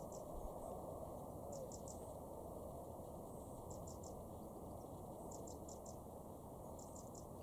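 Faint high-pitched chirping in quick groups of three or four short notes, repeating about every one and a half to two seconds, over a steady low rumble.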